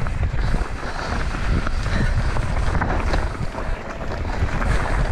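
Mountain bike descending dry dirt singletrack: wind buffeting the microphone and a steady tyre rumble on the dusty trail, with scattered clicks and rattles from the bike over the rough ground.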